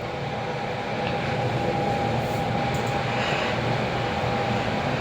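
Fujitec passenger lift car travelling downward: a steady running rumble with a thin, steady whine, growing a little louder over the first couple of seconds.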